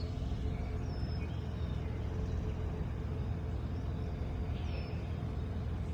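A steady low rumble with a faint steady hum, like a vehicle engine running, and two faint short high chirps, about one second in and near the end.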